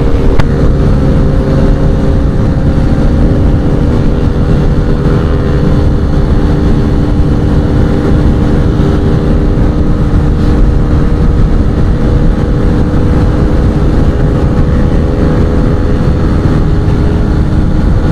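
TVS Raider 125's single-cylinder engine running hard at a steady high road speed. Heavy wind rush on the phone microphone.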